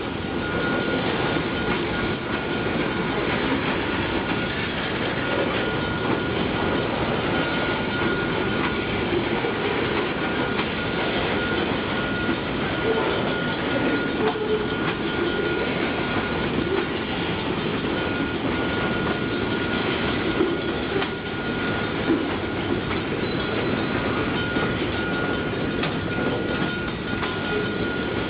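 Freight train of boxcars rolling past close by: steady rumble and clatter of steel wheels on the rails, with a thin, steady high whine over it.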